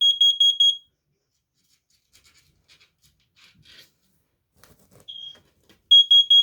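Carbon monoxide alarm sounding its test signal: a quick group of four high-pitched beeps, a pause of about five seconds, then another group of four beeps near the end, the four-beep pattern a CO alarm uses for a carbon monoxide alarm. A single short beep comes just before the second group.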